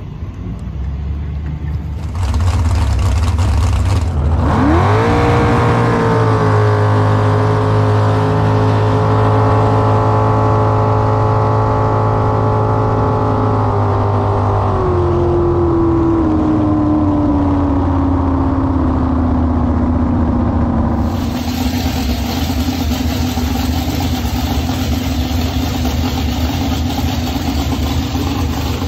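Jet boat engine making a full-throttle run: it revs up sharply, holds a steady high drone at top speed of about 93 mph, then winds down slowly as the boat backs off, with wind and water rushing over it.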